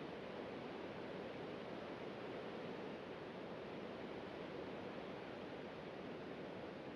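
Steady rushing noise, even and unchanging, with no distinct events.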